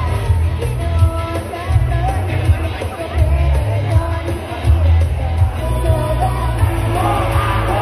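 Amplified pop music with a singing voice over a heavy pulsing bass beat, played through PA speakers.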